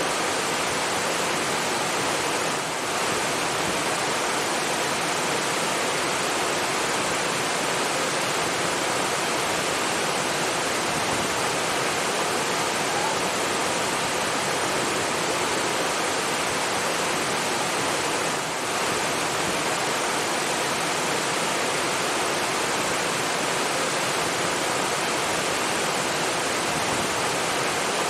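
Steady rushing of flowing water, an even hiss with no separate splashes, dipping slightly for a moment twice.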